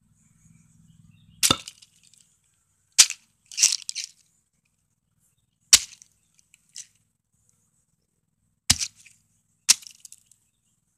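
Hatchet chopping down onto a large pine cone on a concrete tabletop: about six sharp, cracking chops at uneven intervals, one of them a longer crunch.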